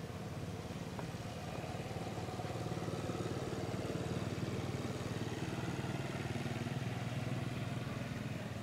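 A motor engine running, like a passing motorbike: a steady low hum that swells to its loudest in the middle and eases off near the end.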